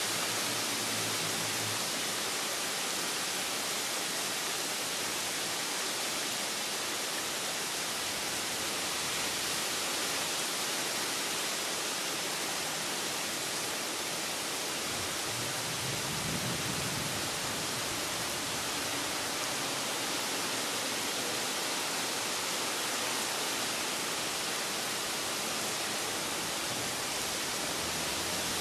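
Steady rain falling, an even hiss with no pauses. A faint low rumble rises and fades about halfway through.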